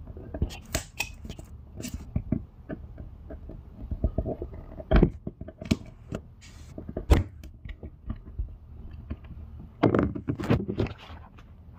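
Small crow's foot pry tool clicking and scraping against staples in the metal slide-out seal track as they are pried out one by one: irregular sharp clicks with a few louder knocks, and a cluster of knocking and rubbing near the end.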